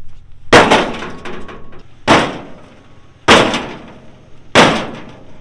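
Four hard blows on the steel bed side of an old pickup, each a loud bang with a short ringing decay, spaced a little over a second apart. The strikes test how solid the old sheet metal is.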